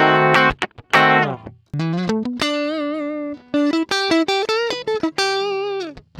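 Electric guitar played solo: a few short chord strikes, then a single-note lead line with string bends and vibrato, ending on a held note that slides down in pitch.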